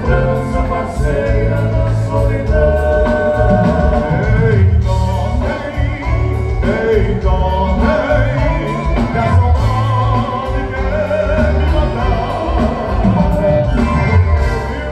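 Live gaúcho dance band playing with singing over a steady bass beat, amplified through the hall's PA.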